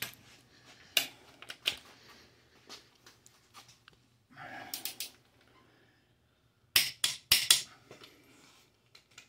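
Sharp metallic clicks from a torque wrench as the cylinder-head bolts of a Ford 352 FE V8 are tightened to 110 lb-ft, single clicks scattered through and a quick run of four about seven seconds in. A short scuffing noise comes about four seconds in.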